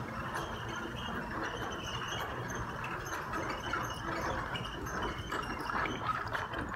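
Horse-drawn two-wheeled carriage rolling over sand arena footing, its wheels and harness rattling, with the horse's hoofbeats as it comes past close by.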